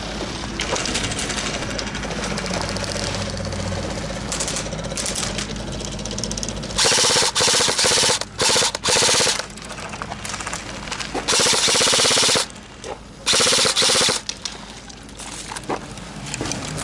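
An airsoft gun firing fully automatic, in five or six loud bursts of rapid shots with short pauses between them, over about seven seconds from roughly the middle of the stretch onward.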